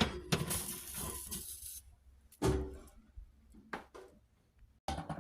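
Kitchen handling noises: a sharp click and about two seconds of rustling, then a few scattered light knocks and clicks.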